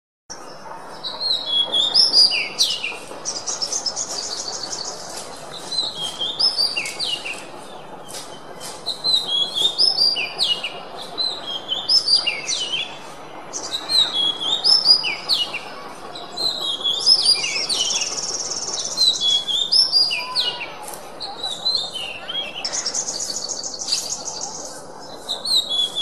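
Oriental magpie-robin (kacer) singing a continuous song of varied sweeping whistled phrases, broken by several fast high trills, over steady low background noise. The song begins a moment after a brief silence.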